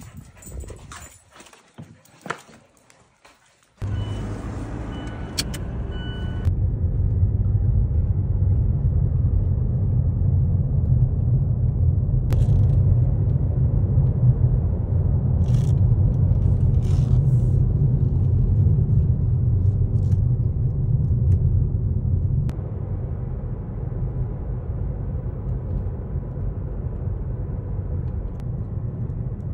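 Steady low rumble of a motor vehicle running, starting suddenly about four seconds in after a few light clicks.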